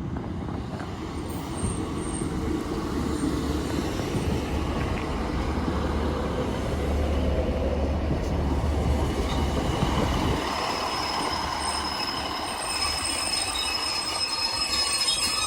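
Two coupled Class 156 diesel multiple units rolling into the platform and braking. The rumble eases about ten seconds in, and a high, steady squeal sets in near the end as the train slows to a stop.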